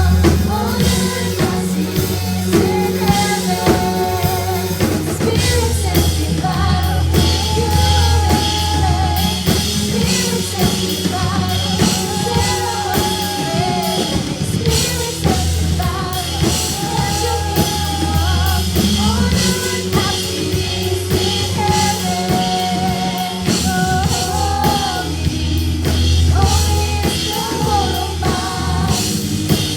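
A worship band song with lead vocals over a full band: drum kit, bass and guitar.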